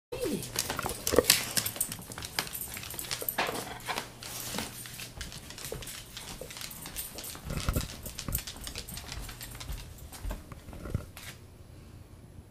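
Pet dog whining in short, separate bursts, among close scuffling and clicking noises.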